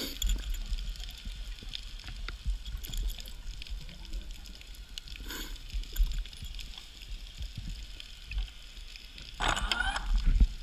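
Underwater sound picked up by a diver's camera: a low rumble with scattered knocks and clicks as the camera is moved, and short gurgling bursts of bubbles, the loudest near the end.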